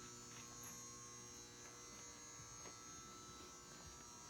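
Near silence, with a faint steady electrical hum and buzz.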